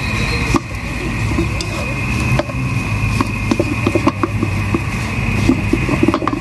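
Spatula scraping, pressing and tapping cooked rice against a wok as the rice is broken up and stirred into fried rice. The short scrapes and taps come thicker in the second half, over a steady hum.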